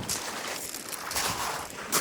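Surf washing over a beach of rounded pebbles, the stones rattling against each other in the moving water, swelling louder near the end.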